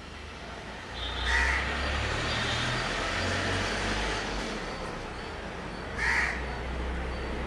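A crow caws twice, a few seconds apart, over a steady low hum.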